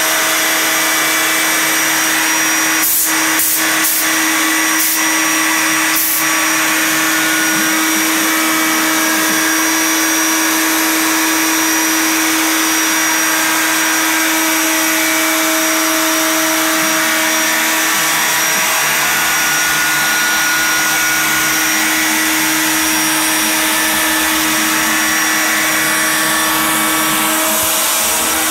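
CNC router spindle running steadily with a constant whine as a single-flute 1/8-inch end mill cuts 0.25-inch black ABS sheet. A few short sharp clicks come about three to six seconds in.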